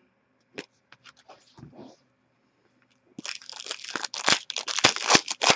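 A stack of hockey trading cards being handled. There are a few faint clicks at first, then from about three seconds in a dense run of rustling and sharp snaps as the cards are slid through the hands and laid down on the glass counter.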